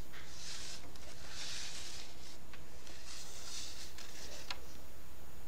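Rustling and scraping as a motherboard on its anti-static foam sheet is handled and shifted, in three short bursts with a couple of light clicks, over a steady low hum.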